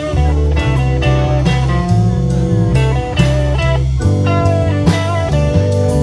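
Live rock band playing an instrumental passage with no singing: a bending lead line over a steady bass line, guitar and drum kit.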